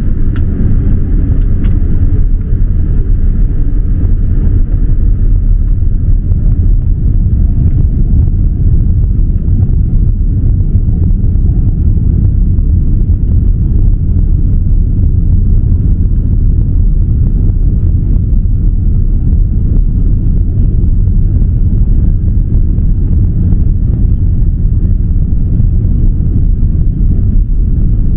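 Boeing 787-9's Rolls-Royce Trent 1000 engines running at takeoff thrust, heard from inside the cabin as a loud, steady, deep rumble. A higher engine whine fades over the first few seconds.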